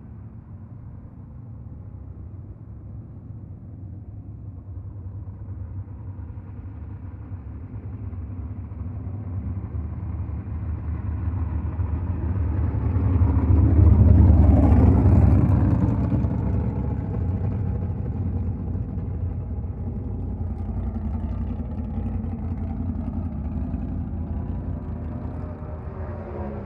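Car engine running and passing by: it grows steadily louder to a peak about halfway through, drops in pitch as it goes past, then fades slowly.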